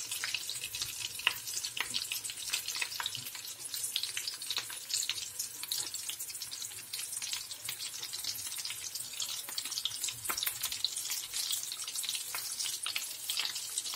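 Egg-coated potato patties (aloo chops) frying in hot oil in a frying pan: a steady sizzle full of small crackling pops, with a few sharper clicks now and then.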